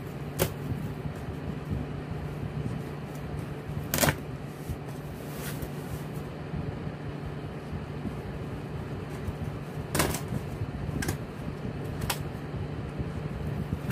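Cardboard shipping box being cut open with a pocket knife and handled: a few sharp cardboard cracks and clicks, about six in all, the loudest about four and ten seconds in, over a steady low hum.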